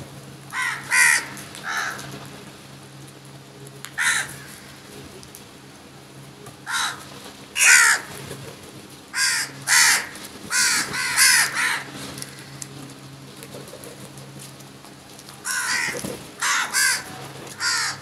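House crows cawing repeatedly while feeding as a flock: short, harsh caws, some single and some in quick runs of two or three, about a dozen in all.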